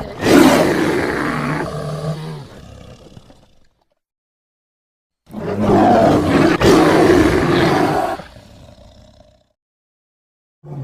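Roars of a large wild animal, played one after another as separate sound effects with dead silence between them. One swells just after the start and fades away over about three seconds, a second runs about four seconds, and a third begins at the very end.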